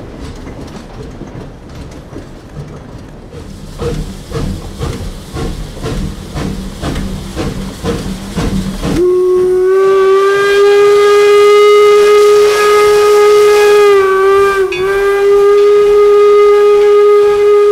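4-4-0 steam locomotive Northern Central Railway No. 17 passing close, its train making a rhythmic clatter. About halfway through, its steam whistle sounds one long, loud, steady blast that wavers briefly in pitch near the end.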